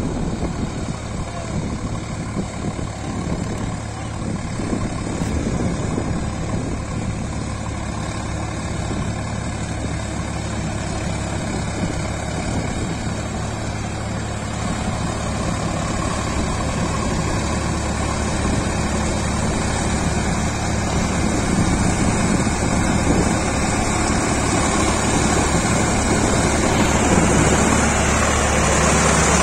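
Sonalika RX 47 4WD tractor's diesel engine running steadily under load as it pulls a rotavator through wet paddy mud, growing gradually louder as it comes closer.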